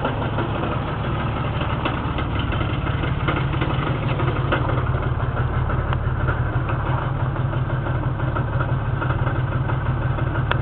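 The 1992 Jeep Cherokee's engine idles steadily, a low, even running hum. The engine has 300,000 miles on it.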